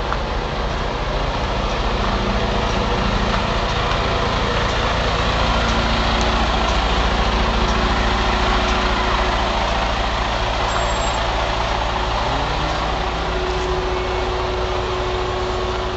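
Large coach bus engine running close by, a steady low hum that rises in pitch about twelve seconds in.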